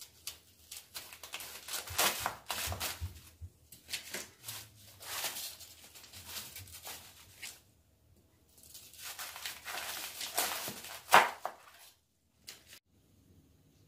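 Napa cabbage being cut at the base with a kitchen knife and split apart by hand, the crisp leaves crunching and tearing in three bursts of a few seconds each. A sharp knock near the end is the loudest sound.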